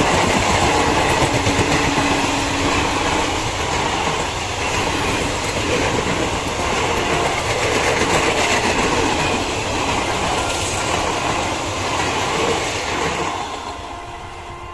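Indian Railways passenger express coaches rolling past close by, the wheels clattering over the rails in a dense, steady din. The noise falls away over the last second or two as the tail of the train draws off.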